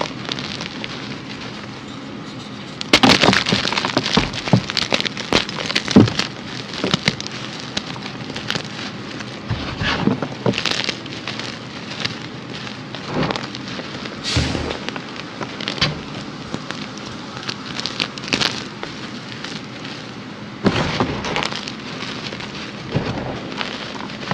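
Hands crushing and squeezing red-dyed reformed gym chalk and a white chalk block into loose powder: dense crunching and crumbling, loudest in a flurry of crunches from about three to seven seconds in.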